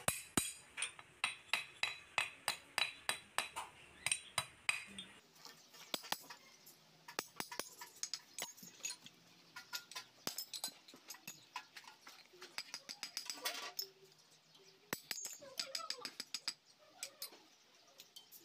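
Small hammer tapping a steel punch in quick, light metallic strikes, about three a second, bending over the lock tabs under the crown wheel bolts of a differential. This is followed by scattered metal clinks and knocks as the parts are handled.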